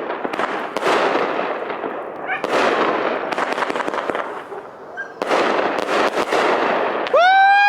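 A Red Apple Pagoda 25-shot 500 g fireworks cake firing: a sharp shot every second or two, each followed by a long crackling burst that fades away. Near the end a loud, steady, high-pitched tone cuts in.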